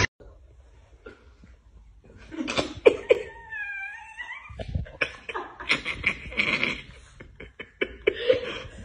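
Chihuahua snarling and yapping in a play-fight, starting about two seconds in: a wavering whiny cry, then a quick run of short harsh snarls.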